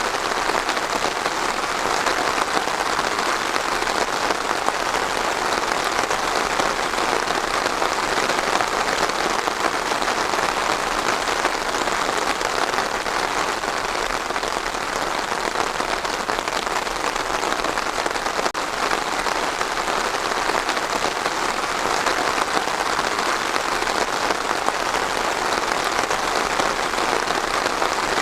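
Steady rain falling on a surface, an even, unbroken hiss of many drops.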